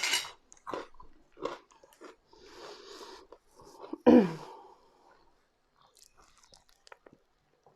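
Close-miked chewing and crunching of fries, several crisp crunches in the first couple of seconds. A short falling 'mm'-like hum comes about four seconds in, then only faint mouth sounds.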